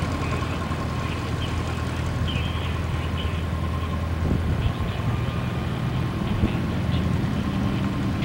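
Boeing B-17 bomber's four Wright R-1820 radial engines running at low taxiing power, a steady low engine note.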